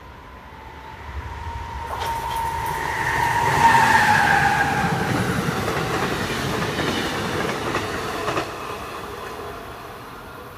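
Amtrak passenger train passing at speed. A high whine drops in pitch as the locomotive goes by, then the coaches rush past with repeated wheel clicks. The noise falls off sharply as the last car clears, about eight seconds in.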